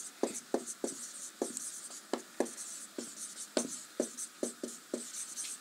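Marker pen writing on a whiteboard: a quick run of short strokes, about three a second, each a brief falling squeak with a dry scratch.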